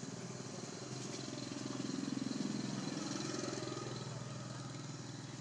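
A motor vehicle's engine running past, growing louder about two seconds in and then slowly fading.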